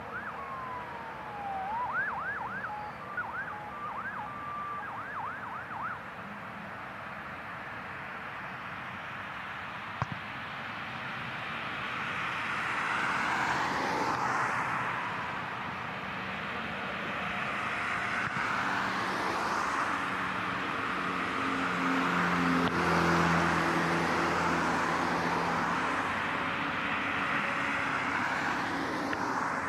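Boeing 747 jet engines: a rumbling roar that swells about twelve seconds in and stays loud, with a slowly sweeping hiss over it. In the first few seconds a warbling whistle rises and falls several times.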